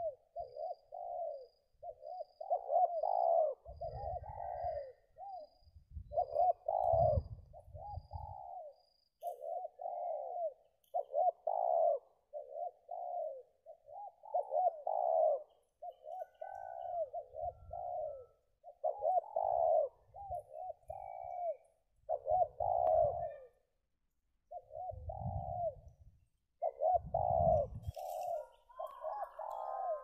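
Spotted doves (tekukur) cooing, one phrase after another with hardly a gap, and a higher call joining near the end. Several dull low rumbles of wind or handling on the microphone come and go underneath.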